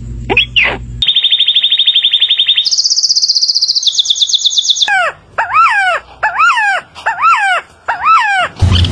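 A series of bird calls that change abruptly from one kind to the next. Short falling chirps come first. About a second in, rapid high trills begin, jumping twice to a different pitch. From about five seconds in there is a run of six repeated swooping calls, and a low hum starts near the end.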